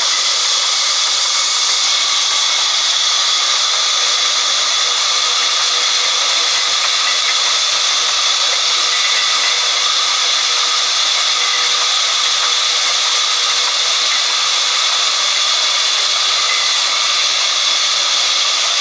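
Large sawmill band saw running, a steady loud hiss with no change or rhythm.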